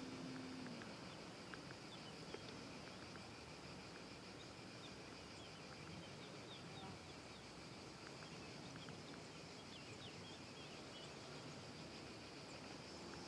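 Faint outdoor ambience: a steady high insect buzz with scattered short bird chirps. A low steady hum stops under a second in.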